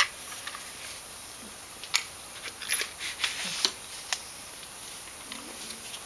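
About six light, scattered clicks and taps of parts being handled, over a faint steady hiss.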